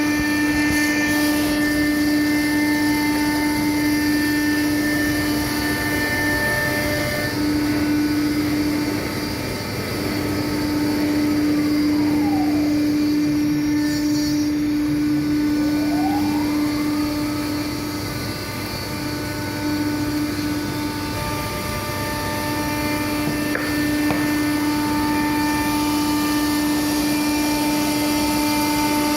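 CNC router spindle running steadily while carving stone, a continuous whine with a tone that dips and climbs back once near the middle.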